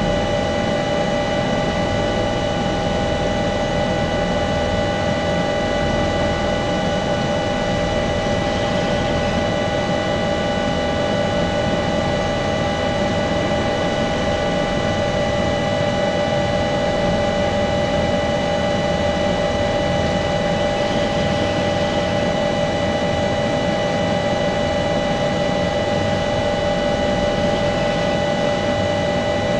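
Airbus H145 helicopter's twin turbine engines and main rotor running steadily on the ground, heard inside the cockpit: a steady whine of several tones over a constant rushing noise.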